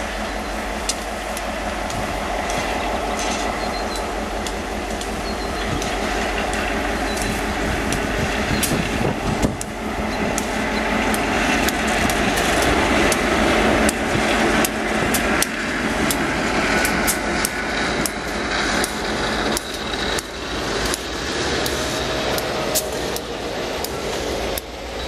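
Diesel locomotive hauling a grain train of covered hopper cars across a wooden trestle. The engine sound builds as it approaches and passes about twelve seconds in, then the hopper cars' wheels clack steadily over the track.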